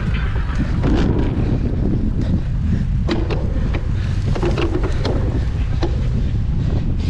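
Strong gusting wind buffeting the microphone in a loud, steady low rumble, with scattered clicks and rattles over it.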